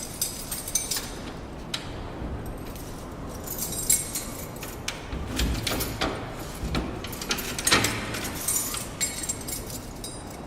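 Metallic jingling, clicks and clanks from the cell-door control gear of the Alcatraz cellhouse being handled. Several sharper clanks stand out among the jingling.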